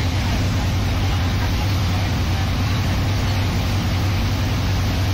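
Steady drone of a Thames Clipper passenger catamaran underway, heard from inside the cabin: a constant low engine hum under a wash of engine and water noise.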